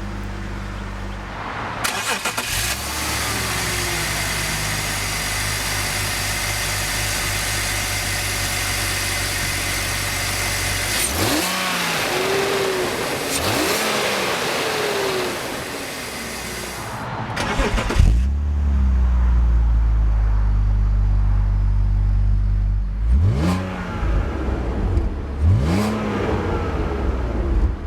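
BMW 330Ci ZHP's 3.0-litre straight-six running and being revved in short blips, the pitch rising and falling back several times around the middle and twice more near the end. A loud rushing noise lies over much of the first half.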